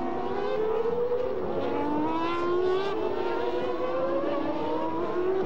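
1994 Formula One cars at full throttle, a Ferrari V12 and a Williams-Renault V10, their engine notes climbing slowly in pitch as they accelerate, one dropping back at a gearshift near the end.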